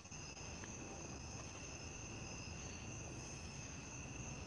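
Night insects, crickets by their sound, chirring steadily as a faint, continuous high-pitched drone at two pitches.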